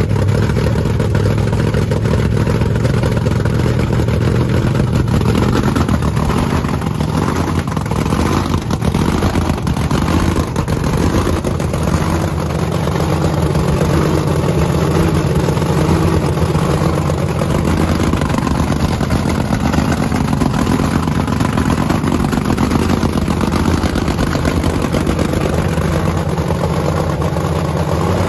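Race car engine running steadily at idle for a leak test, after a new O-ring was fitted to its leaking oil tank cap.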